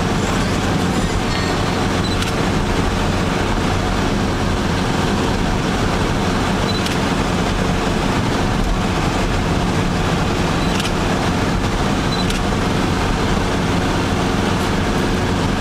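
Steady engine drone and road noise inside a moving vehicle's cabin, cruising at a constant speed.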